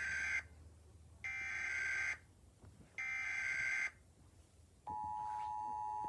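Emergency Alert System tornado warning opening: the SAME header's digital data bursts, encoding the alert, come as the end of one burst and then two more of about a second each with short gaps between. About five seconds in, the steady two-tone EAS attention signal begins.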